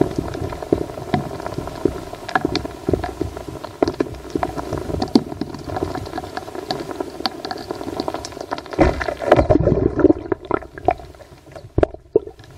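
Sound picked up by a recorder lowered down a 22 m deep borehole: irregular knocks and crackles over a low rumble and a steady hum, with a burst of louder thumps about nine seconds in before it fades near the end. The uploader takes these for rock drilling and blasting from a tunnel being dug underground.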